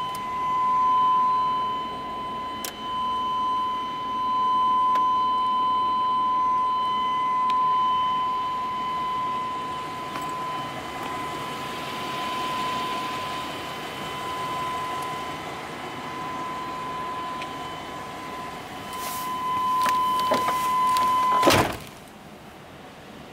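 Pickup cab warning tone sounding steadily while the door stands open, then a few knocks and a door thud near the end, at which the tone stops.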